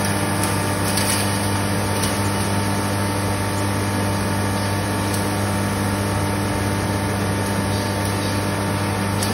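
Electric red chilli powder grinder machine, driven by a 6.5 HP single-phase motor, running steadily with a strong low hum over a constant whirring noise.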